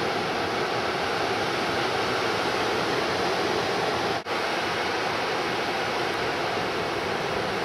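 Steady noise of ocean surf breaking, heard from the shore, dropping out for an instant about four seconds in.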